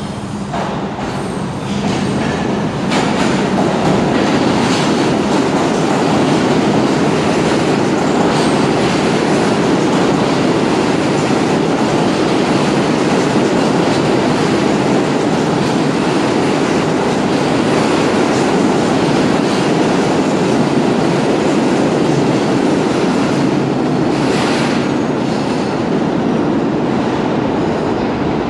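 R32 stainless-steel subway train running along the platform track, a steady loud rumble of wheels on rail with clickety-clack from rail joints. The rumble builds over the first few seconds, then holds steady, with a couple of sharper clanks.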